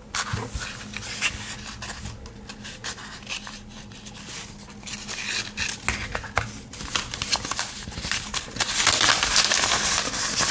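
A folded paper leaflet being handled and unfolded, rustling and crinkling with small clicks. It gets louder and busier in the last couple of seconds.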